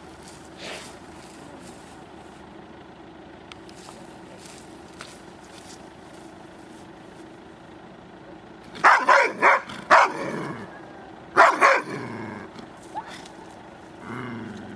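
A dog barking: a quick run of four loud barks, then two more about a second later, over a steady low hum.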